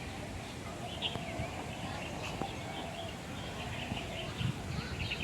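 Small birds chirping in short, repeated calls over a steady outdoor background hum.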